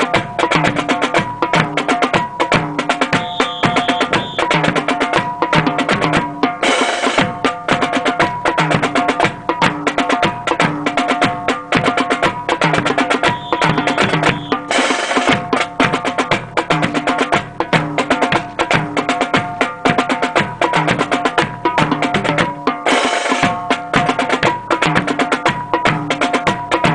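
Military march music with a steady drum beat of snare and bass drum, and a bright crash about every eight seconds.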